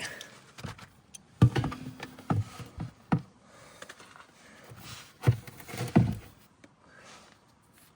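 Several dull knocks and clunks of hand tools being handled while working at the rear differential plug, loudest about a second and a half in and again around five seconds in.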